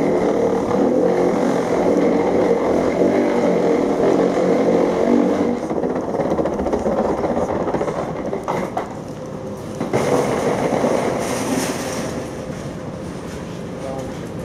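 Steady mechanical drone of airport machinery with a hum running through it, loudest for the first few seconds, then easing off and swelling again briefly about ten seconds in.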